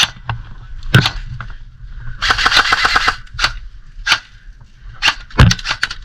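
Airsoft guns firing: scattered single shots, with a rapid full-auto burst of about a second starting about two seconds in, then more single shots.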